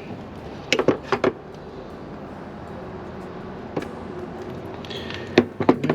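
Short sharp clicks of hand tools working a blue butt connector onto 12-gauge bilge-pump wire, in a cluster about a second in, once near four seconds and again near the end, over a steady low hum.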